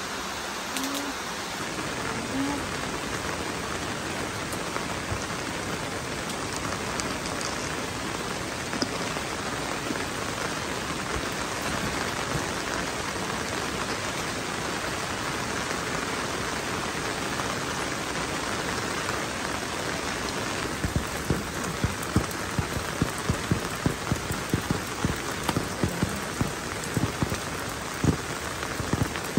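Steady rain falling. From about two-thirds of the way in, loud individual drops strike close by at irregular intervals over the rain.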